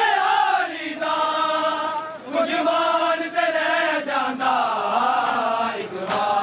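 A group of men chanting a Punjabi noha, a Muharram mourning lament, together in a held, gliding melody. Several sharp slaps of chest-beating matam cut through it.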